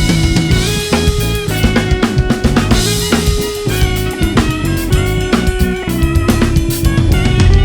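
A band playing live: a drum kit with Soultone cymbals drives the tune with dense bass drum, snare and rimshot hits, under busy pitched instrument lines.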